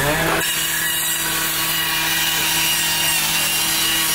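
Gas-powered saw revving up to full speed in the first moment, then running steadily at high revs.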